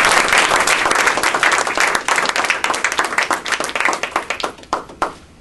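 Audience applauding. The clapping thins out to a few last separate claps and stops about five seconds in.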